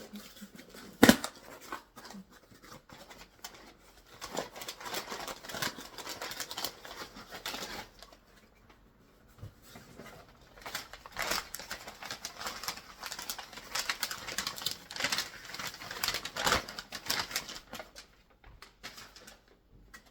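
A package being opened and unpacked by hand: irregular rustling, scraping and tearing of the packaging with many small clicks, and one sharp knock about a second in.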